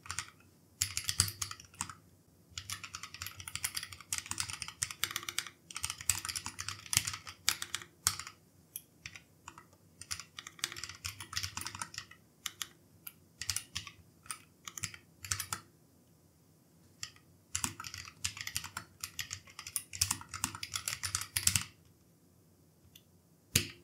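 Typing on a Keychron K3 Pro low-profile mechanical keyboard with Gateron red linear switches: runs of fast keystroke clicks with short pauses between them.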